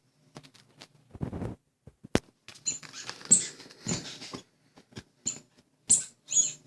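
A small pet animal squeaking in short, high calls among scratchy clicks and scuffling.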